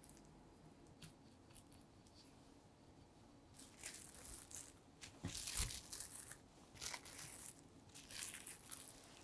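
Plastic cling film crinkling as it is pulled over and wrapped around a tart pan, starting about three and a half seconds in and loudest around the middle. Before it come a few faint ticks of a knife trimming tart dough at the pan's rim.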